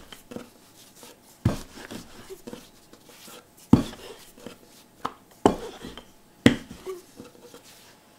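Wooden rolling pin rolling chive-pancake dough flat on a floured wooden board: soft rolling and rubbing sounds with several sharp wooden knocks spread through.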